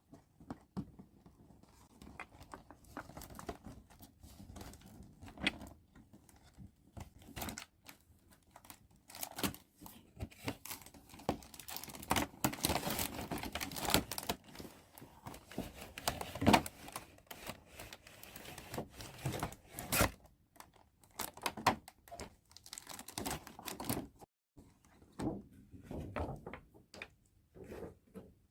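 Toy packaging being opened and handled by hand: crinkling and tearing of wrapping, with irregular clicks, taps and small thunks of plastic pieces. The sounds come thickest in the middle stretch.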